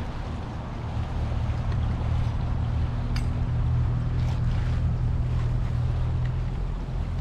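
Low, steady drone of a boat's engine out on the lake, swelling over the first few seconds and then holding. A few crinkles of a plastic bag being handled sound over it.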